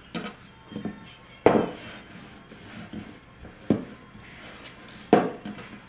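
Wooden rolling pin rolling out a ball of samosa dough on a floured board, knocking against the board as it goes back and forth. The loudest knock comes about a second and a half in, and two more strong ones follow a couple of seconds apart.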